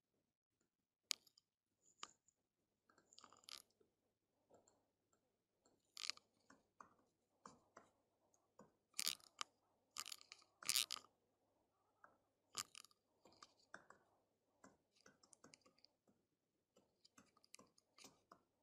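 Faint, irregular clicks and taps of a computer keyboard and mouse, keys struck unevenly as a web address is typed.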